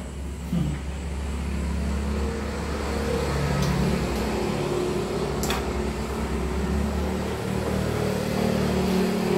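A motor engine running steadily with a low hum, growing a little louder over the first couple of seconds and then holding. A light click sounds about five and a half seconds in.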